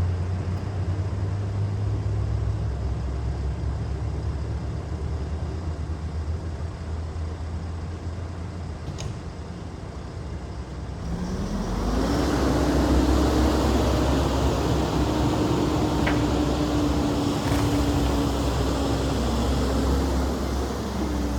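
Volvo EC140 excavator's diesel engine running low, then revving up about halfway through and holding the higher revs. A few faint sharp clicks are heard over it.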